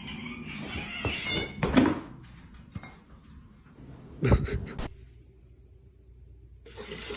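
A domestic cat meowing, several separate calls with short pauses between them.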